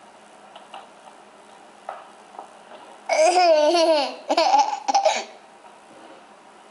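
A toddler's high-pitched squealing laugh, one long wavering squeal about three seconds in followed by a shorter run of broken laughing bursts.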